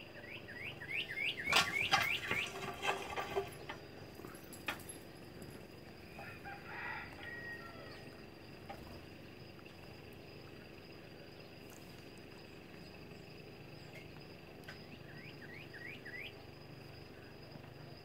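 Northern cardinal singing: a quick run of about ten slurred whistled notes that speed up, then a shorter phrase of about five notes near the end. A few loud knocks or rustles break in over the end of the first phrase.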